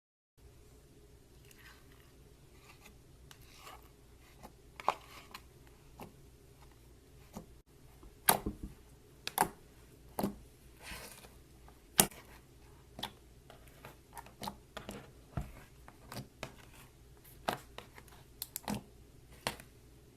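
Slime being handled: irregular sharp clicks and pops, sparse at first and more frequent and louder in the second half, over a steady low hum.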